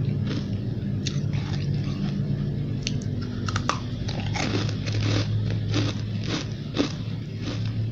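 Close-up crunching of white, snow-like ice chunks being bitten and chewed: a quick, uneven series of crisp crunches, over a steady low hum.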